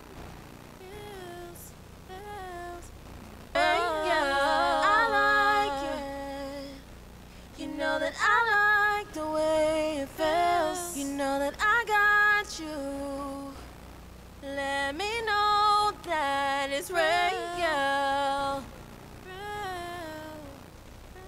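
A singer's voice in short melodic phrases with sliding pitch, unaccompanied, the phrases broken by pauses of a second or two.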